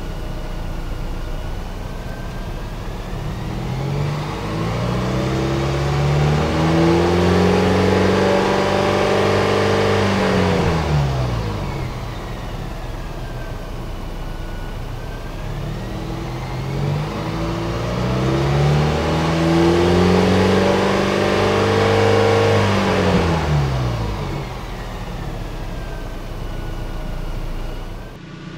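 2024 Toyota Tacoma's 2.4-litre turbocharged four-cylinder running in place, its exhaust leaving through a home-made rear-axle exhaust dump with the resonator and tip removed. The engine is revved up twice, each rev held several seconds before it falls back to idle.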